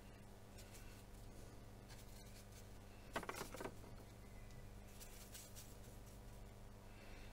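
Watercolour brush scrubbing and swirling paint in the mixing well of a metal paint box: a few quick, soft scrubbing strokes about three seconds in and fainter ones a little later, otherwise near silence over a faint steady hum.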